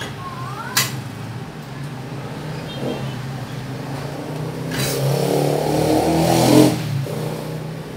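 A motor vehicle passing by: it swells up about five seconds in and fades away about two seconds later, over a steady low hum. A single sharp click comes about a second in.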